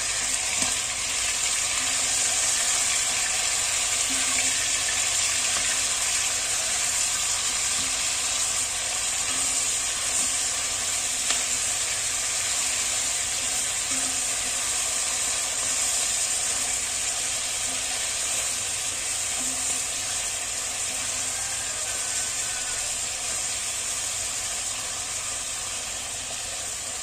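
Chicken and chopped onion frying in oil in a pot, a steady sizzling hiss, stirred now and then with a wooden spoon.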